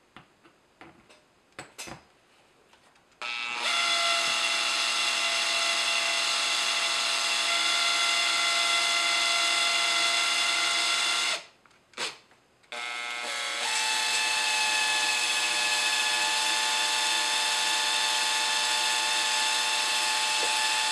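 18-volt cordless drill set to its lowest speed, driving screws into a plastic housing. The steady motor whine runs twice for about eight seconds each, with a short pause between, after a few light clicks of handling at the start.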